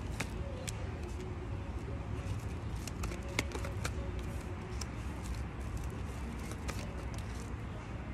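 Tarot cards being shuffled by hand, with scattered light clicks and flicks of the cards, over a steady low background rumble.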